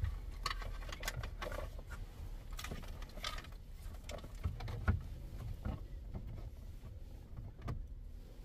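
An aftermarket touchscreen car stereo being pushed and worked into its dash opening: irregular plastic clicks, scrapes and knocks as the unit and its bunched wiring are handled, with a sharper knock about five seconds in.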